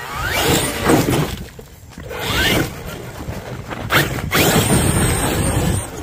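Traxxas X-Maxx XRT's brushless electric motor revving in bursts, a whine rising in pitch with each burst of throttle, over tyre noise on dirt and gravel. A sharp crack about four seconds in, then a steady high whine as it runs off.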